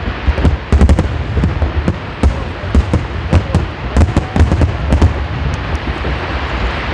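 Aerial fireworks display going off in a rapid, continuous barrage: sharp bangs and crackling pops, several a second, over a constant low rumble.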